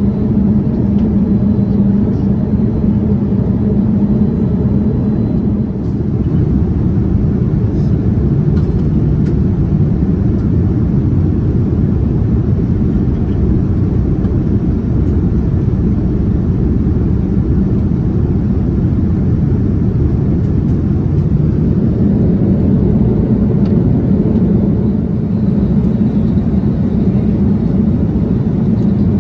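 Steady low drone of engine and airflow noise inside the cabin of a Boeing 787-10 airliner in flight.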